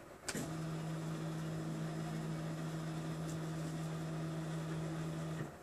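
Z-axis stepper motors of a RepRap Prusa Mendel 3D printer running, turning the threaded Z rods to lower the X-axis carriage and extruder. A steady, even hum starts just after the beginning and cuts off just before the end.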